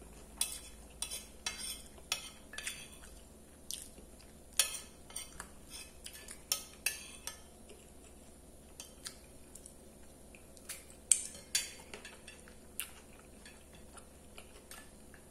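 Metal spoon and fork clinking and scraping against a plate in a run of irregular sharp taps, two of them louder, at about four and a half and eleven seconds in.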